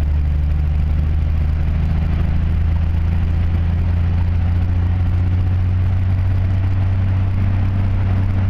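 Vehicle engine running at a steady cruise, heard from inside the cab: a loud, even low drone that holds the same pitch throughout.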